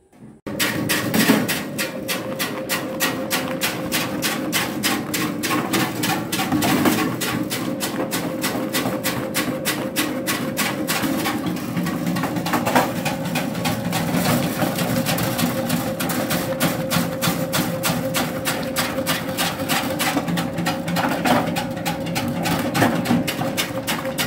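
Electric sweet potato stick-cutting machine starting up about half a second in and then running steadily. It gives a constant motor hum and a rapid, regular clicking from the cutting blades as sweet potatoes are pushed through its feed chute.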